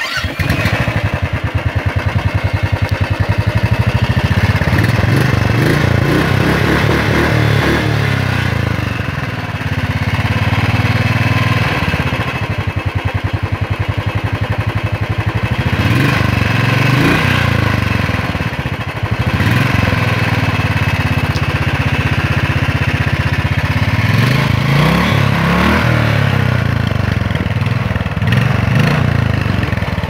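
Royal Enfield Thunderbird 350's single-cylinder engine starting up and idling through its stock silencer, with a few short throttle blips that raise the pitch briefly.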